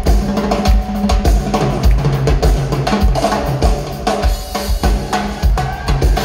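Live drum and percussion groove: congas and drum kit playing a busy rhythm with strong bass-drum beats, over a few held low notes from the band.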